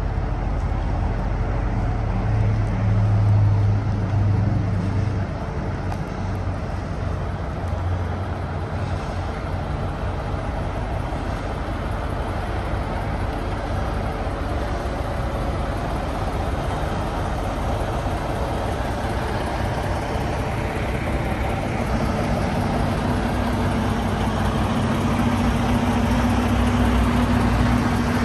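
Volvo semi tractor's diesel engine running at low revs, swelling a little about three seconds in and settling into a steady idle drone near the end.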